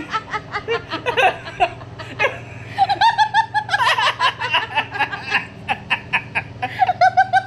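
A man and a woman laughing hard together in quick, repeated bursts of belly laughter, the woman's laugh higher-pitched.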